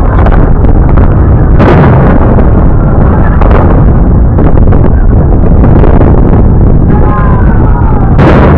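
Fireworks aerial shells bursting: a few sudden booms, the last and sharpest near the end, over a steady loud rumble.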